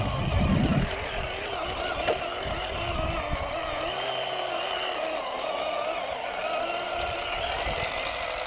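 Radio-controlled scale Land Rover's motor and gears whining as it drives over grass, the pitch rising and falling with the throttle.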